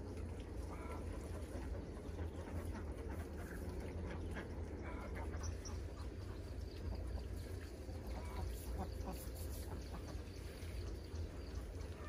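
Ducks quacking now and then in short calls, over a steady low rumble.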